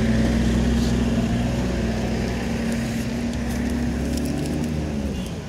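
Motor vehicle engine running steadily close by, a low hum that drops in pitch and fades about five seconds in.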